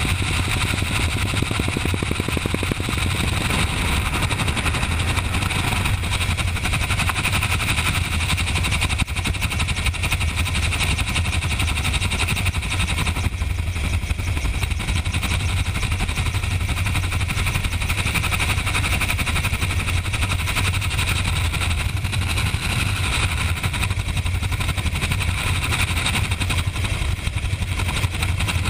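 Helicopter in steady flight, heard from inside the cabin: a constant low drone from the rotor and engine under a steady rush of wind noise.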